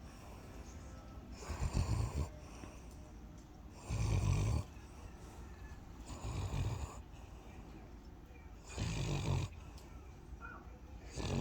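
Snoring in a slow, regular rhythm: five loud, rasping snores, each under a second long and about two and a half seconds apart, with quiet breathing between them.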